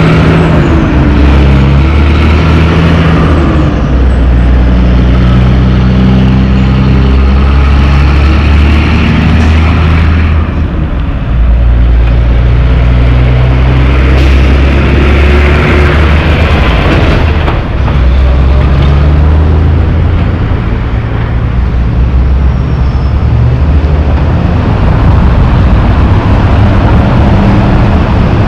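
Heavy diesel logging trucks under load pulling through an intersection, the engines running loud with their pitch stepping up and down as they go through the gears, along with passing car traffic.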